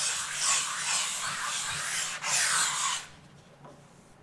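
Foam sanding block worked by hand over dried finishing filler on a wall, giving a rapid rasping rub of short back-and-forth strokes that stops abruptly about three seconds in. It is flattening a small bump in the filler.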